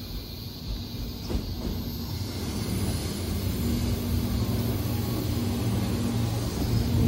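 JR 205 series 3100 subseries electric train arriving at the platform, growing steadily louder as it nears, with a low steady hum under the rumble of the wheels on the rails. The sound gets loudest near the end as the front car draws level.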